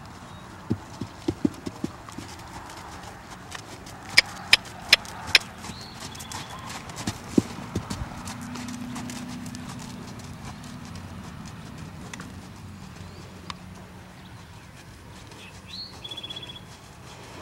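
Horse's hooves striking the sand footing as it canters, heard as irregular thuds and sharp clicks, loudest as a quick run of four clicks about four seconds in. A short high call comes near the end.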